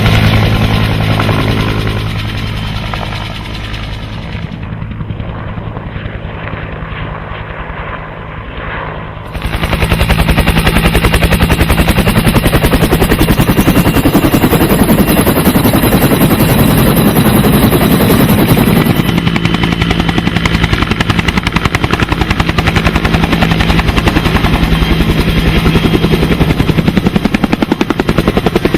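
Helicopter engine and rotor running steadily, with a fast, even chop from the blades over a steady engine drone. For a few seconds near the start it goes quieter and duller, then comes back at full level.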